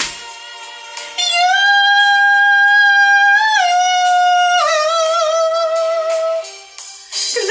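Music from a song: a long held high note, entering about a second in, that steps down twice in pitch before the phrase ends near the close.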